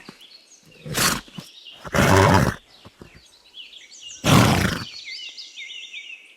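Horse making three loud, breathy sounds, about a second in, around two seconds, and past four seconds, with small birds chirping in the background.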